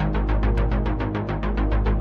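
Background music with a fast, even pulse of about eight or nine beats a second over a steady low bass.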